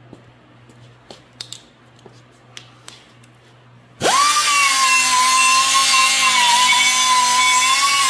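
A few light clicks and knocks of handling, then about halfway through an angle grinder fitted with a Scotch-Brite disc switches on, spinning up quickly to a loud, steady high whine.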